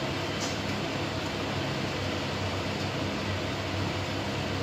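Steady background noise: a constant low hum under an even hiss, with no distinct events.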